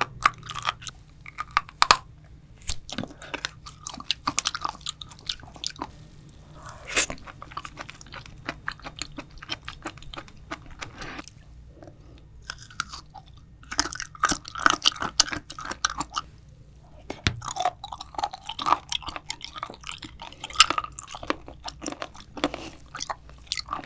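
Close-miked biting and chewing of raw seafood, including sliced raw abalone: many sharp, crisp clicks and wet chews in bursts, with a few short pauses between mouthfuls.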